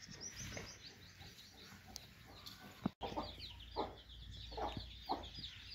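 Chicks peeping in many quick high chirps, with a hen's short low clucks among them after about three seconds.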